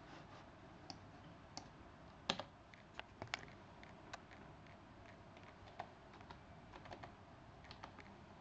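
Keys of a Logitech Ultra-Flat keyboard being typed on: scattered, irregular keystroke clicks, the loudest about two seconds in.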